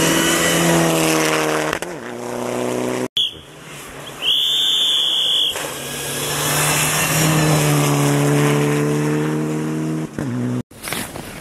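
Mitsubishi Lancer Evolution rally cars passing at speed on a snow stage, their engines held at high revs with the note sagging slightly as each goes by, one car and then another after a break. About four seconds in, a high steady tone sounds for about a second.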